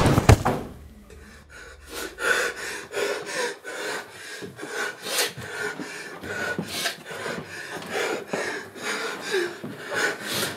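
The tail of a loud bang right at the start, then a man's heavy, rapid breathing in short repeated breaths, with rustling of movement.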